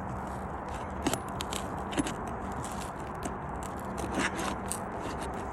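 Roof shingle being pried at and worked loose: scattered scrapes and sharp crackles, the loudest about two seconds in, over a steady low background hum.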